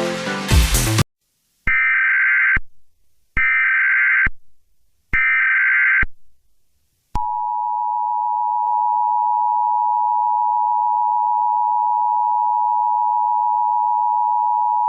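Emergency Alert System activation: electronic music cuts off about a second in, then three short screeching bursts of SAME header data, then the steady two-tone EAS attention signal held for about eight seconds.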